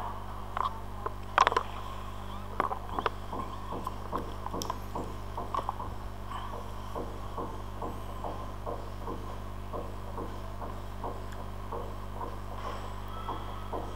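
Steady electrical mains hum on the microphone. Over it come a few sharp clicks at first, then a faint, even ticking of about two to three a second.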